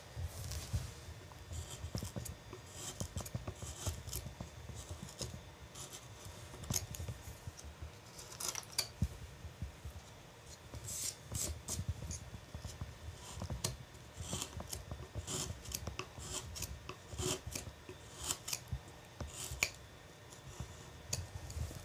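A hand carving gouge slicing and paring into a wooden carving in short strokes: irregular crisp cuts and scrapes, mixed with low knocks.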